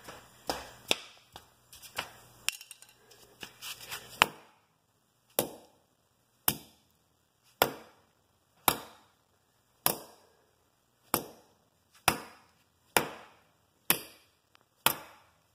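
Small sledgehammer striking a plastic fidget spinner on a concrete floor. A few irregular knocks come first, then steady blows about once a second, each a sharp crack with a short ringing tail.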